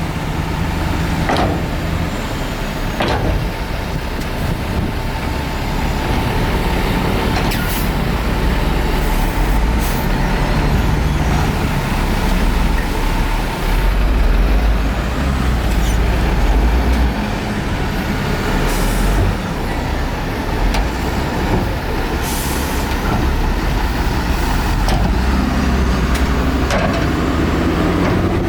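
Heavy diesel earthmoving machinery, a bulldozer and dump trucks, running steadily with a deep rumble, with a few short sharp noises over it.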